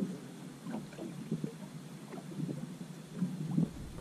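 Small waves lapping and slapping irregularly against the hull of a fishing boat.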